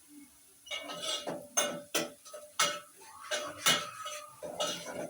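A metal spoon knocking and scraping against a cooking pan, a run of irregular clinks at about two a second starting a little under a second in.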